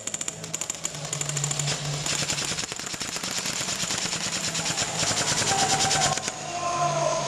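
Airsoft guns firing rapid full-auto bursts, a fast string of sharp clicks that overlap and stop about six seconds in.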